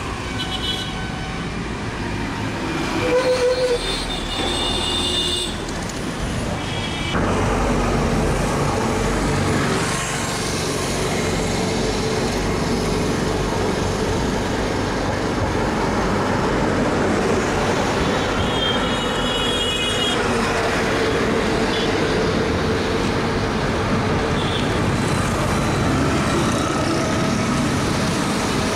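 Suburban electric multiple unit train running, with a horn sounding a few seconds in. After a sudden change about 7 s in, a steady vehicle rumble with a held hum carries on, and another horn toot comes about two-thirds through.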